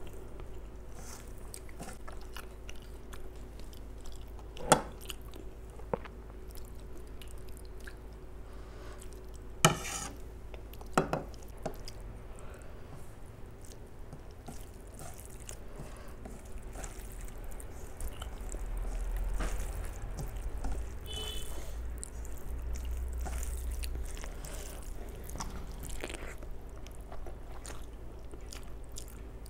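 Close-miked chewing and mouth sounds of a person eating rice and mutton curry by hand, with fingers mixing the rice on a steel plate. A few sharp clicks stand out, the loudest about 5 s and 10 s in.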